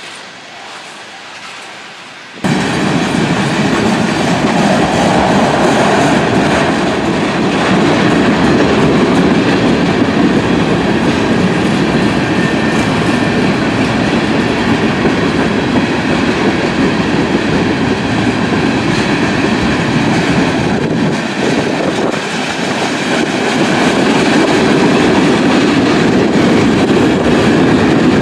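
Freight train of tank cars and covered hoppers rolling past close by: steady, loud noise of steel wheels on the rails. It cuts in suddenly about two and a half seconds in, after a quieter stretch of a train passing farther off.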